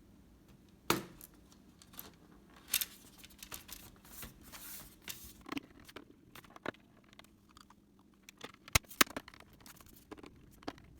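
Scattered clicks and taps of a laptop's plastic bottom case and small screws being handled as the case is fitted back on and screwed down, with a sharp click about a second in and a quick run of clicks near the end.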